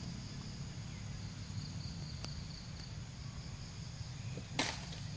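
Steady insect buzzing in high, even tones over a low hum, with one short, sharp noise near the end.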